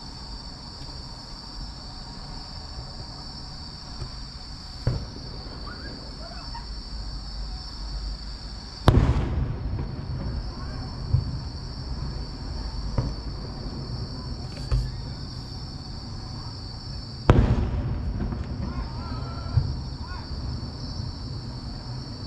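Fireworks going off: two loud booms that echo away, about 9 and 17 seconds in, with smaller pops between. A steady high chirring of insects runs underneath.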